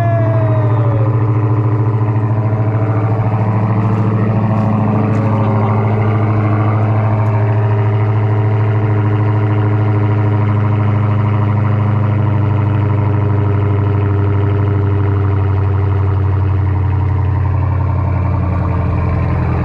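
Supercharged 6.2-litre HEMI V8 of a Dodge Charger SRT Hellcat Redeye idling steadily and loudly.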